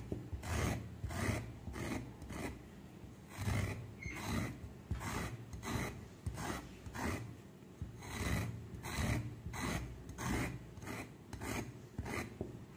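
Steel spoon scraping the skin off a raw bottle gourd in quick repeated rasping strokes, about two a second.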